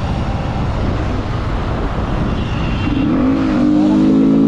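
Wind buffeting the microphone on a motorcycle at speed, then about three seconds in a small motorcycle engine's note comes up loud and climbs slowly in pitch as it accelerates.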